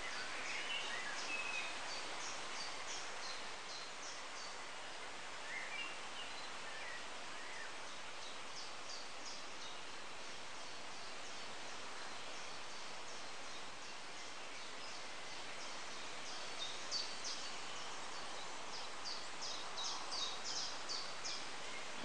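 Small songbirds singing in woodland over a steady background hiss: a few warbling phrases near the start and around 6 s, and runs of quick, high, sharp notes about 9 s in, around 17 s and near 20 s.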